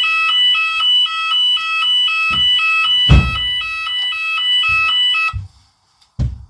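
Fire alarm sounder going off with an electronic tone that switches rapidly back and forth between two pitches, then cuts off abruptly about five seconds in. A few low thumps sound under it; the loudest is about three seconds in.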